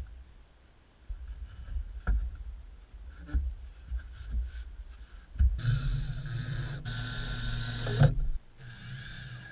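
Wooden knocks and handling thumps as a pine shelf unit is positioned, then a cordless drill runs in two bursts: a long one of about three seconds with a brief break, and a shorter, quieter one near the end.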